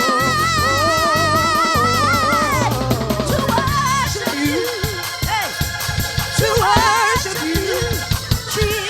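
Praise music with a band: a long held note with vibrato that slides down about two and a half seconds in, then shorter sung phrases over bass and drums.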